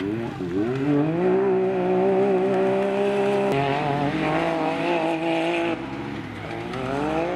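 Engine of a sport side-by-side UTV racing on a dirt track. Revs climb in the first second and hold high and steady for a few seconds, ease off about six seconds in, then climb again near the end.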